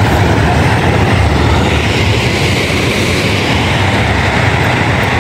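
Ocean surf washing onto a rocky beach, a steady rush, under a heavy low rumble of wind buffeting the microphone.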